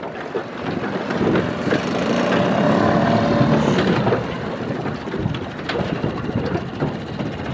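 Small outboard motor on an aluminium fishing boat running as the boat passes close by, loudest around three seconds in, then easing as it moves away.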